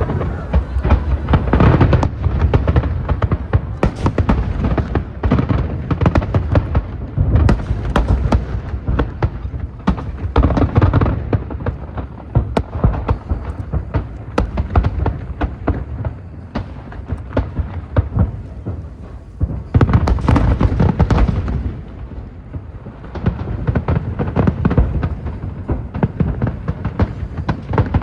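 Aerial fireworks display: a dense, irregular barrage of booming shell bursts and sharp crackling reports, with heavier swells of bangs a couple of seconds in and again about two-thirds through.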